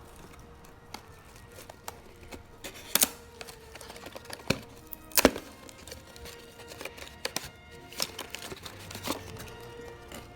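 Background music over a series of sharp plastic clicks and crinkles as a toy surprise egg and its wrapping are handled. The loudest clicks come about three, four and a half, and five seconds in.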